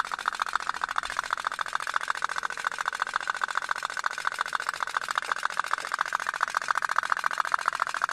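Toy pop-pop (otok-otok) steam boat running, its boiler popping in a fast, steady putt-putt of about ten pops a second.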